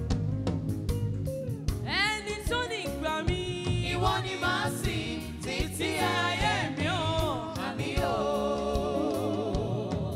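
A woman singing a gospel worship song with backing vocalists over a live band with drums and guitar. Her voice comes in about two seconds in and ends on a long wavering note near the end.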